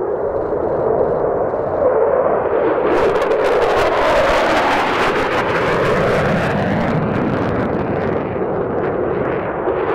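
Low-flying fighter jet passing close and fast, its engine noise building over the first few seconds, loudest in the middle and easing near the end.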